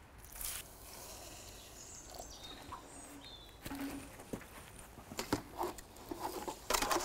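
Milky slaking lime poured into a galvanised metal bucket, a brief splash just after the start. From about halfway, a trowel clicks and scrapes inside the metal bucket in irregular strokes as the quicklime is stirred while it slakes into lime putty, the strokes getting busier near the end.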